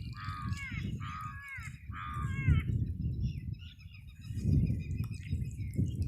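A crow cawing three times in quick succession, each caw falling in pitch, over a low, uneven rumble.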